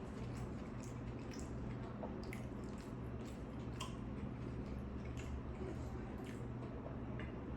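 Close-up wet mouth sounds of chewing a soft tuna sandwich: irregular small clicks and smacks. Under them runs a steady low hum.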